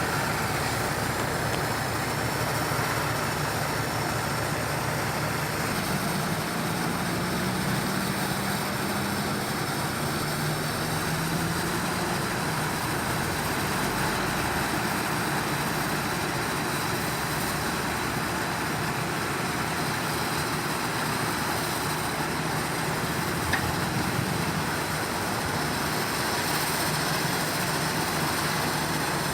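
Heavy diesel construction machinery running steadily, its engine hum rising slightly for a few seconds midway, then settling.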